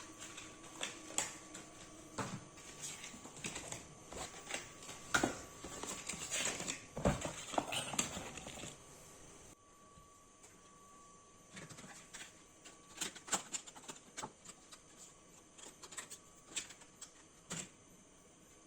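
Scattered light clicks and knocks of hands handling PC parts while a DDR4 RAM stick is fitted into a motherboard's memory slot. The clicks come thickest in the first half and thin out after a sudden drop in the background noise about halfway through.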